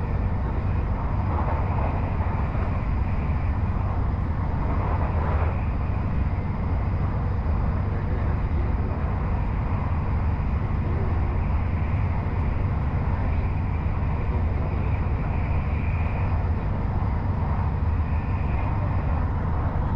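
Steady running rumble of a Bangkok Airport Rail Link electric train at speed on an elevated line, heard from inside the carriage, with a fainter hiss that swells and fades.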